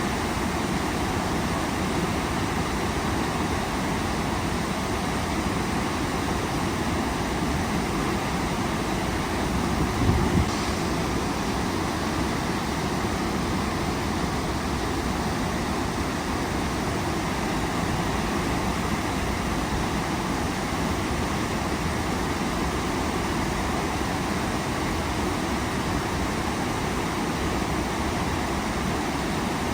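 Waterfall rushing steadily, a dense even wash of falling water, with a brief low thump about ten seconds in.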